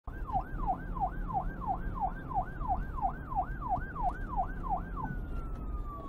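Siren in a fast yelp, rising and falling about three times a second over a low rumble; about five seconds in it changes to one long tone that slowly falls.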